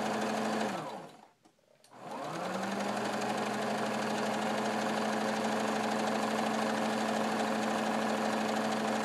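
Electric sewing machine stitching a straight seam through cotton muslin. About a second in the motor winds down and stops briefly. It then starts up again, its pitch rising, and runs steadily.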